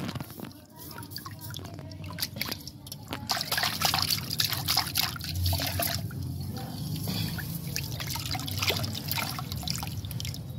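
Muddy water sloshing, trickling and dripping as it is scooped from a plastic tub with a steel bowl and poured, decanting the water off settled soil. The splashing is loudest a few seconds in.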